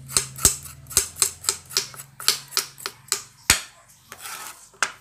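Kitchen knife peeling the skin off a fresh turmeric root on a plastic cutting board: quick, sharp strokes about three a second. They stop after about three and a half seconds, with one more stroke near the end.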